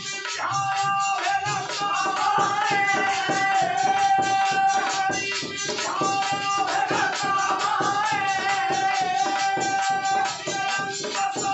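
Folk devotional music: a harmonium holding steady notes, with a dholak and jingling percussion keeping a quick, even rhythm under a man singing.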